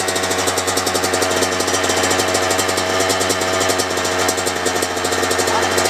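Kawasaki KX100 two-stroke single-cylinder dirt bike engine idling steadily with a fast, even pulse, run briefly after a fresh gearbox oil change.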